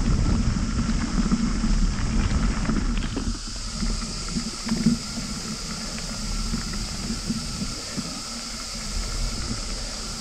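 Bicycle tyres rolling over a gravel track, heard through a handlebar-mounted camera as a steady rumble with wind on the microphone. About three seconds in it gets quieter as the bike moves onto a dirt forest path, and a steady high drone of cicadas comes through.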